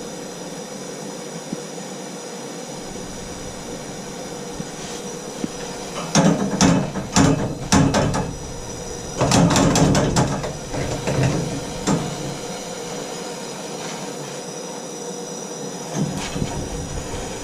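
Steady hiss of a gas torch heating a shower valve's pipework. Two stretches of knocking and clattering handling noise come about six and nine seconds in, with a few clicks near the end.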